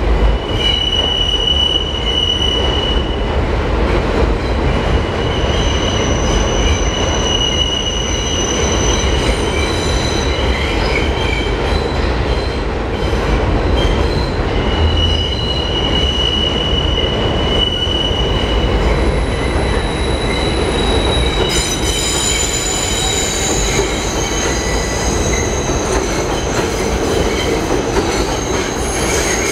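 R142 subway train running on an elevated steel structure: a continuous heavy rumble with the wheels squealing on and off in several high, thin tones.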